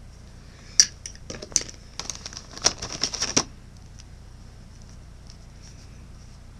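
Packaging being handled: a run of sharp clicks and crinkles lasting about two and a half seconds, then only faint background.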